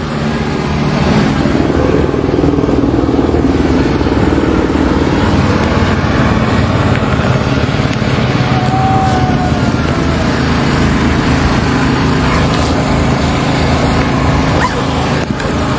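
An engine running steadily, mixed with rustling and knocking as the phone is handled and taken off its gimbal.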